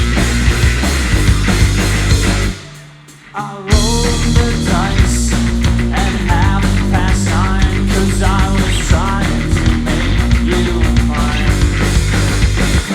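Live rock band playing: electric guitar, bass and drum kit in an instrumental passage. About two and a half seconds in the band stops short for about a second, leaving a faint low note and a brief sliding guitar tone, then the full band comes back in together.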